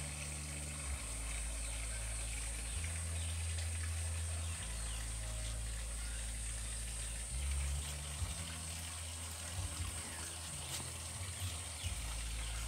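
Outdoor garden ambience: a steady high-pitched insect drone with a few faint chirps, over a low rumble on the microphone that shifts every second or two.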